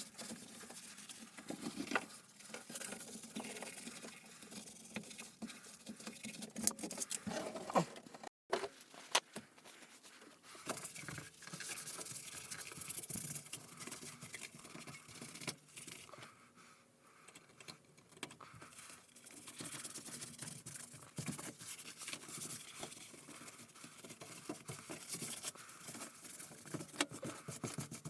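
Busy irregular scratching, rustling and light clicking of hand work, with a brief dropout about eight seconds in.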